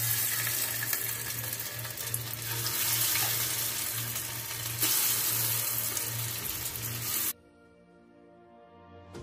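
Marinated chicken pieces sizzling loudly as they go into hot oil in a frying pan, a steady sizzle with a low pulsing hum beneath it, cutting off suddenly about seven seconds in. Soft background music runs underneath.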